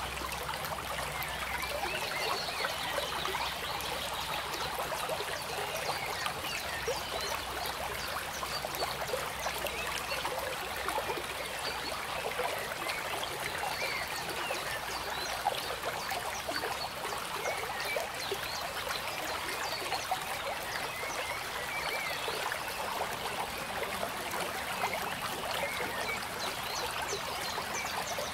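Steady babbling of a stream: water trickling and gurgling evenly throughout.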